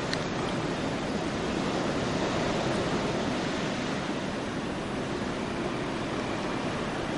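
Blizzard wind blowing in a steady rush.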